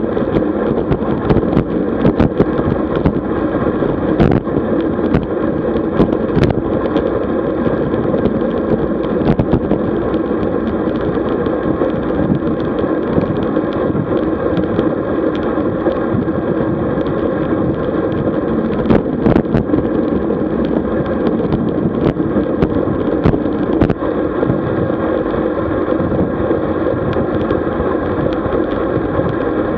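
Steady rush of wind on the microphone and rolling noise of a road bike on the move, with frequent small clicks and knocks throughout.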